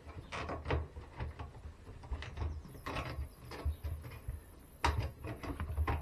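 Rubber door seal of a washing machine being worked free of the front panel by hand: irregular scuffs and knocks with dull thuds, the sharpest just before the end.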